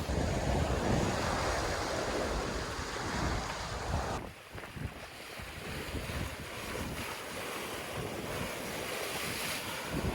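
Ocean waves rushing past a sailboat at sea, with wind buffeting the microphone. The sound drops abruptly about four seconds in, then the wash and wind carry on.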